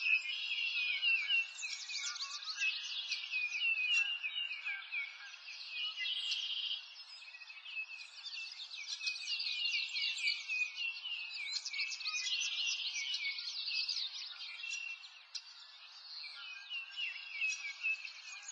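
A dense chorus of many small songbirds, with overlapping chirps and trills and no pause, thinning briefly about three quarters of the way through.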